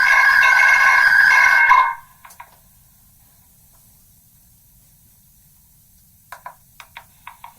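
Megaphone playback of a recording that has been re-recorded many times from one megaphone to another, the spoken phrase worn down into distorted, ringing tones. A loud, steady, tinny drone cuts off abruptly about two seconds in. Faint hiss follows, and from about six seconds in comes a run of short, clipped chirps.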